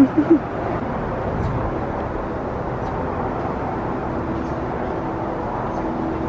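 Steady outdoor background noise, an even low rumble and hiss, after two short pitched sounds right at the start.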